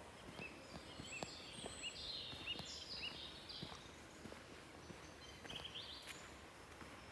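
Footsteps on a dirt forest path while birds sing: a run of short chirps about every half second in the first few seconds, then higher warbling notes and, near the end, a brief rising trill.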